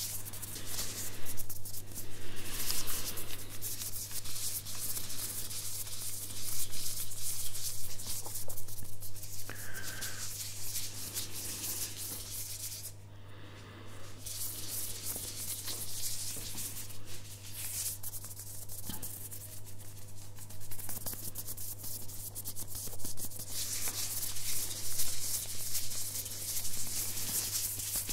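Hands in clear plastic gloves rubbing and crinkling close up against a microphone's furry windscreen, a dense crackly rustle that swells and eases, over a steady low hum.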